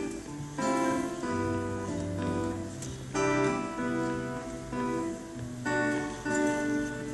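Acoustic guitar playing chords, a new chord sounding about every second or two.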